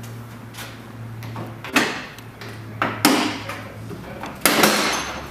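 Plastic clips popping as a Toyota Prado 150's stock plastic front bumper is pulled free of the front guard: four sharp plastic snaps and clacks, two of them close together about three seconds in, over a steady low workshop hum.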